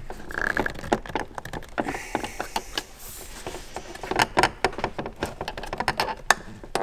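BMW E39 headlight lens being pressed by hand into its plastic housing onto warmed sealant: a run of small plastic clicks and crackles, thickest in the second half, with a short squeak about half a second in.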